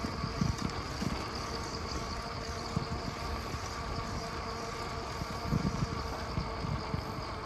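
Wind rumbling on the microphone of a moving bicycle in uneven low gusts, over a steady high drone of insects in the trees.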